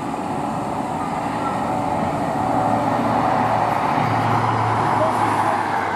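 A train running past on the line: a steady rush and rumble that slowly grows louder, with a low hum coming in about two and a half seconds in.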